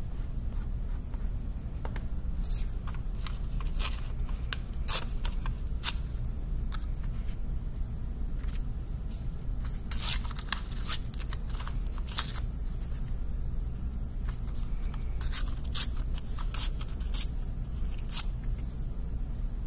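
Sheet of paper being torn by hand into pieces and handled, heard as many short rips in clusters, over a steady low hum.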